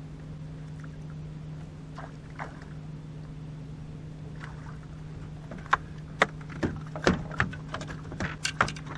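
A steady low hum runs throughout. From a little past halfway, a run of sharp, irregular knocks and slaps comes as a small fish is swung aboard and handled in the boat.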